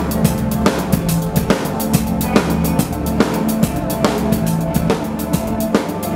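A live rock band playing, led by a drum kit: a fast, steady beat of kick, snare and cymbal hits over sustained lower notes.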